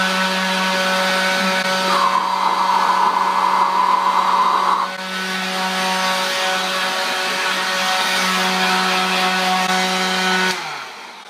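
Battery-powered cordless leaf blower running steadily: a motor whine over a rush of blown air. A louder rushing hiss joins from about 2 to 5 seconds in. The blower is switched off about a second before the end, and its whine falls away.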